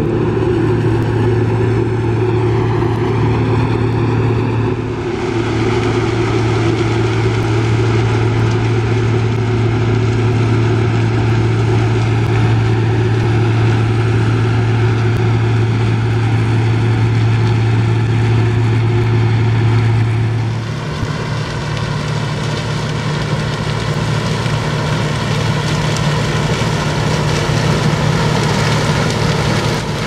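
Claas Mega 360 combine harvester running under load while cutting and threshing sunflowers: a steady, loud engine and machinery drone. The tone changes at edits about five seconds in and again about twenty seconds in, where the drone steps up to a higher pitch.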